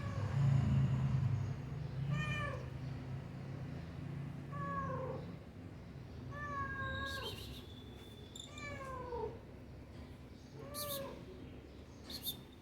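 A cat meowing repeatedly: about six drawn-out meows, roughly two seconds apart, each falling in pitch, over a low steady hum.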